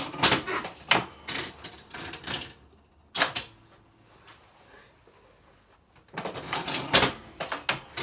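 Old coin-operated fruit machine (one-armed bandit) clicking and clattering mechanically in bursts: a long run of clatter, a short burst about three seconds in, a pause, then more clatter from about six seconds in.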